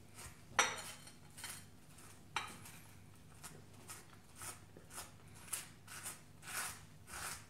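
Butter knife scraping butter across toast in short raspy strokes, about twice a second. Two sharper clinks of the knife on the ceramic plate come within the first few seconds.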